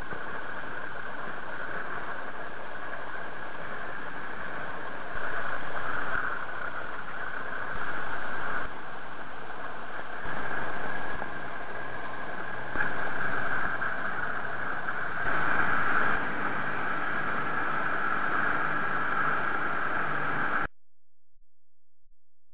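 Rigid inflatable boat under way: engine running, with wind and water rushing past, stepping louder in five short stretches. The sound cuts off abruptly near the end.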